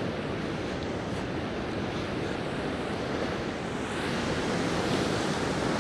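Ocean surf washing steadily in, swelling a little louder and hissier about four seconds in, with some wind on the microphone.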